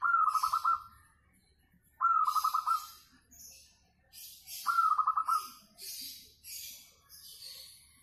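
Zebra dove (perkutut) cooing three times, each a short rolling coo of quick pulsed notes, about two seconds apart. Fainter, higher scratchy chirping comes in between the coos.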